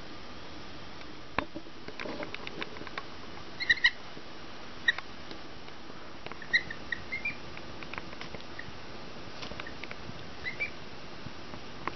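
Two-day-old Sebastopol goslings giving short, high peeps a handful of times, with light clicks and rustling as they move and peck at feed in pine shavings.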